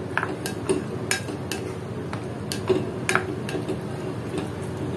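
A spatula stirring thick yogurt raita in a glass bowl, tapping and scraping against the bowl's sides in irregular sharp clicks, about two or three a second.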